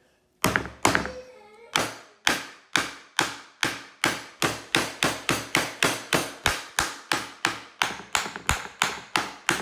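Wooden mallet pounding a giant lobster claw on a cutting board: a steady run of about twenty sharp knocks, a little over two a second. The thick claw shell is holding and not cracking.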